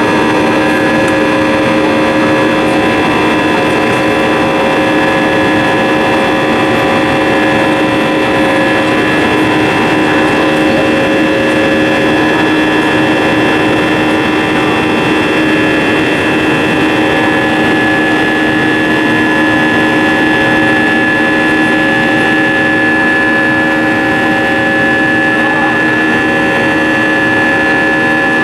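Airbus A320 jet engines in flight, heard inside the cabin from a seat beside the engine: a steady, loud roar with several steady whining tones held throughout.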